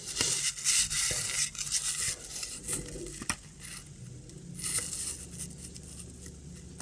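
Rustling and light taps of postage stamps being handled and moved about, busiest in the first three seconds with another short rustle about five seconds in.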